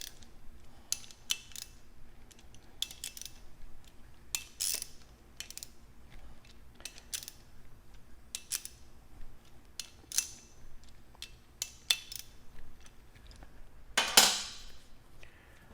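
Irregular metallic clicks and clinks of wrench-and-socket work as the bolts on a gas regulator's top plate are torqued down, with a louder clatter near the end.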